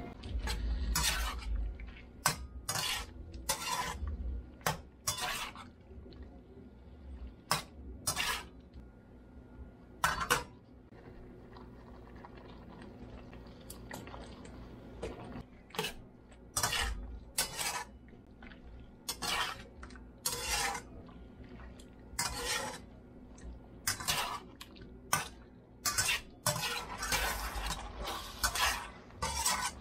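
Metal spatula scraping and knocking against a skillet as chicken pieces are stir-fried, in irregular strokes a second or two apart that come faster near the end.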